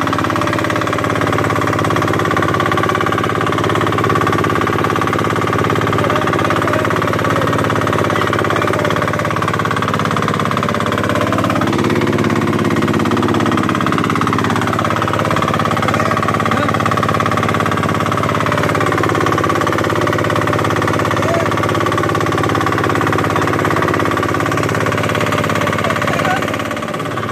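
A fishing boat's engine running steadily at a constant speed.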